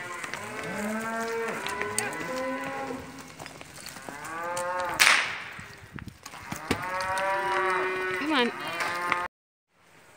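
A herd of cattle mooing and bawling, many overlapping calls from several cows at once. A brief loud rush of noise cuts in about halfway, and the calls stop abruptly near the end, leaving only a faint background.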